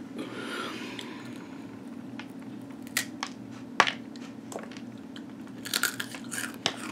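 A person chewing crunchy rolled corn tortilla chips (Takis), with a few sharp crunches over a faint steady hum.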